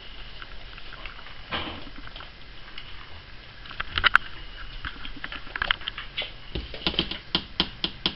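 Kittens playing in a pen: a light, irregular patter of clicks and taps from paws, claws and toys. The clicks bunch up about four seconds in and come quicker, several a second, near the end.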